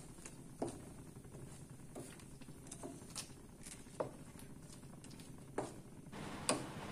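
Wooden spatula stirring chicken pieces in thin coconut milk in a metal wok, with faint, scattered taps and scrapes against the pan about once a second or so.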